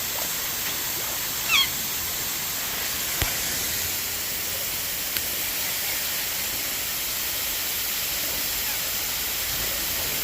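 Steady hiss throughout, with one short, falling squawk from a parrot about one and a half seconds in and a couple of faint clicks later.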